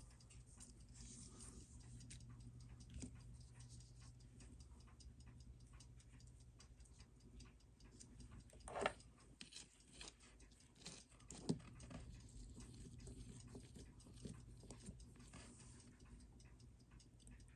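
Near silence with faint, rapid ticking and a low steady hum; a brief rustle about nine seconds in and a small click about two and a half seconds later.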